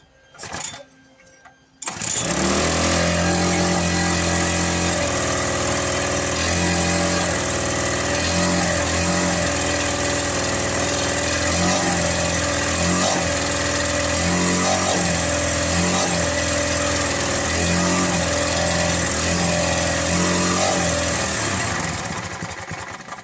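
Victa lawnmower's Briggs and Stratton engine starting suddenly about two seconds in and running fast and steady for about twenty seconds, then dying away near the end. The speed does not respond to the throttle, which the owner takes for something holding it at full revs.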